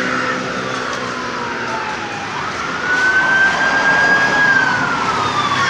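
A siren wailing, its pitch sweeping up about two seconds in, holding, then sliding slowly down, over steady street traffic noise.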